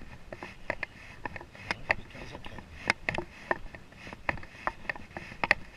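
Footsteps on a wooden boardwalk: a run of irregular sharp clicks and knocks, a few a second.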